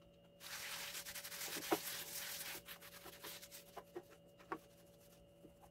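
Scouring pad scrubbing the rusty plate of an electric hot plate with a baking soda paste: a steady rasping rub starting about half a second in and lasting some two seconds, then a few lighter scrapes and small knocks.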